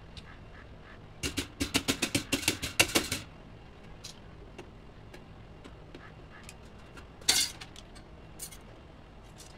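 Metal parts of a pedestal fan's motor housing being worked loose and taken off by hand: a fast run of sharp metallic clicks for about two seconds, then one louder clatter about seven seconds in, with a few light ticks around it.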